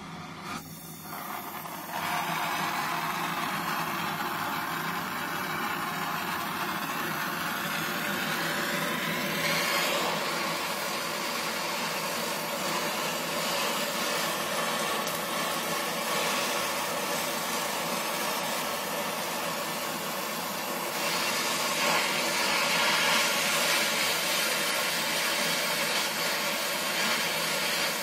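Gas welding torch flame hissing steadily as it plays on a steel pipe to weld a pinhole leak. The hiss gets louder about two seconds in and sharper again about two-thirds of the way through.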